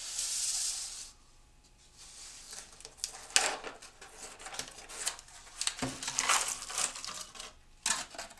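A cardboard jigsaw puzzle box being handled and opened, with rustling, crinkling and light clicks, then cardboard puzzle pieces spilling out and clattering onto the table in the second half. A short hiss of noise at the very start.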